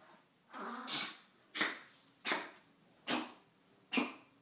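Small Yorkshire terrier-type dog barking: five high, sharp yaps in a row about three-quarters of a second apart, the first one drawn out.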